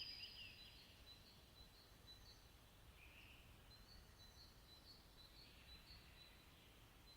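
Faint birds chirping over near silence: louder birdsong breaks off at the very start, then a single short call and a run of quick, high repeated chirps follow.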